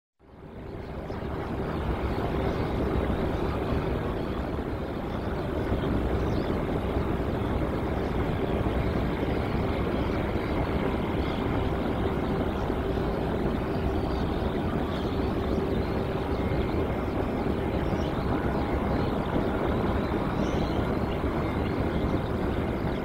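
Jet airliner engines running: a steady rush of noise with a held hum underneath, fading in over about a second at the start.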